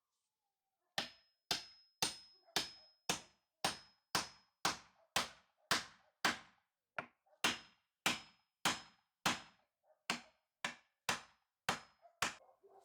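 A hammer striking metal over and over, about two blows a second, many blows leaving a brief high metallic ring.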